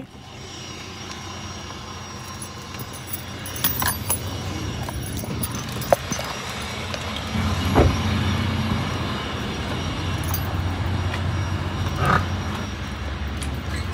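Low, steady rumble of a car heard from inside the cabin, getting heavier about halfway through, with a few scattered clicks and knocks.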